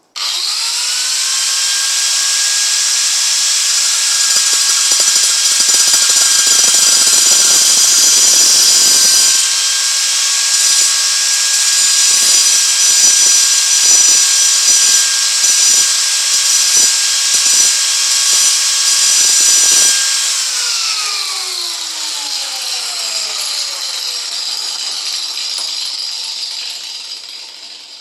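Small high-speed power tool spinning up and cutting through a light-duty bolt: a steady high whine with a harsh cutting hiss over it. About twenty seconds in it is switched off and winds down, its pitch falling away.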